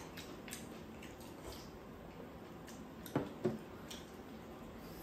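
Quiet eating at the table: faint clicks of metal chopsticks and soft chewing of chewy rice cakes, with two short louder sounds a little after three seconds in.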